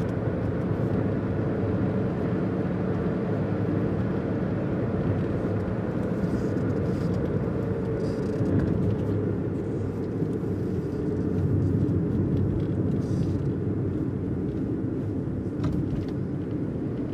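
Steady road and engine rumble of a moving car, heard from inside the cabin, with a few faint ticks.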